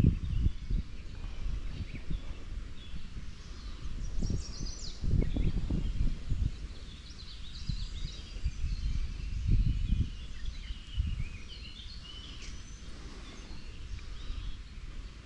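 Birds singing in short chirping phrases, with a few low rumbles that are the loudest sounds, about five and ten seconds in.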